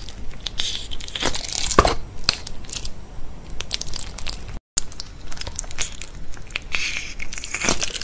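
Green slime being squeezed and stretched by hand, giving a run of small sticky crackles and pops. The sound cuts out briefly a little past halfway.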